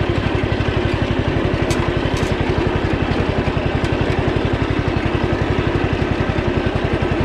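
A 13-horsepower lawn tractor engine running at idle in high gear, an even, rapid putter that holds steady as the tractor creeps forward.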